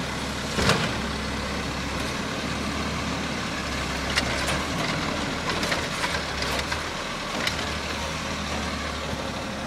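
Automated side-loading garbage truck's diesel engine idling steadily, with several sharp knocks and clanks, the loudest about a second in.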